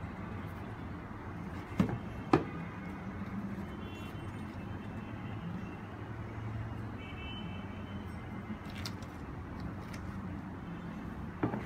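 Steady low hum of distant city road traffic, with two sharp knocks about two seconds in and another near the end.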